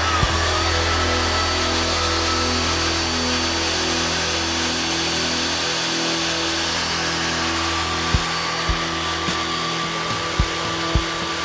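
Angle grinder's universal motor driving a homemade electric outboard, running steadily at about 5500 rpm at the shaft with a high whine. Background music with a beat plays underneath, its thumps coming in the second half.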